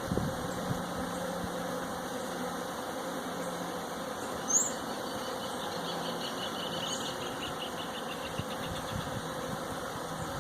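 Swarm of bees buzzing in a jabuticaba tree: a steady, drone-like hum that sounds like multirotor motors. A brief high chirp cuts in about four and a half seconds in.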